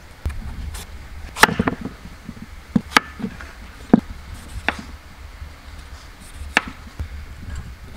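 Kitchen knife cutting green papaya on a wooden cutting board: a string of about seven sharp, irregularly spaced strikes of the blade against the board.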